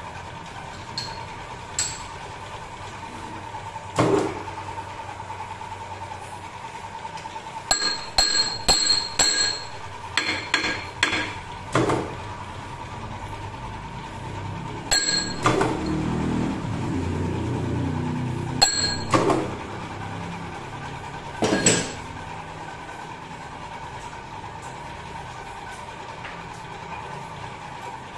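Scattered metal clinks and knocks as a welded aluminium workpiece is handled and adjusted on a lathe faceplate, with a quick run of them about a third of the way in. A steady faint hum runs underneath.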